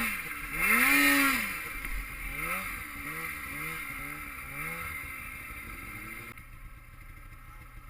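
Snowmobile engine revving up and down over and over: one big rev about a second in, then a run of quicker blips. It gets quieter near the end.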